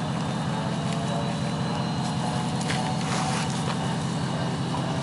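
Off-road Jeep's engine running steadily, with a cluster of faint clicks about three seconds in.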